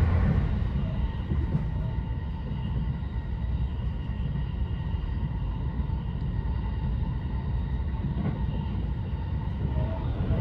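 Haruka limited express train running at speed, heard from inside the passenger car: a steady low rumble of the wheels on the rails with a few faint steady whining tones above it.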